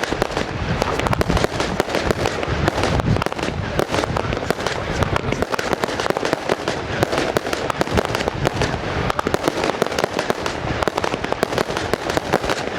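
Fireworks display: a dense, continuous barrage of rapid bangs and crackling, with no pause.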